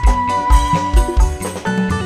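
Folk-pop band music, an instrumental passage: a long held high melody note over a steady low drum beat of about two strokes a second.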